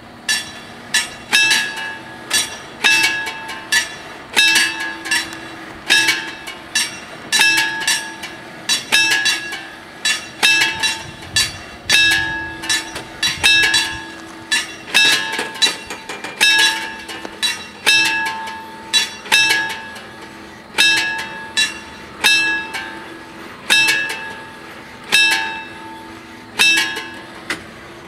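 Electric level-crossing warning bells, two of them, struck over and over in an uneven rhythm of roughly two sharp dings a second, each with a short ringing tail. They signal that the crossing is closing for an approaching train.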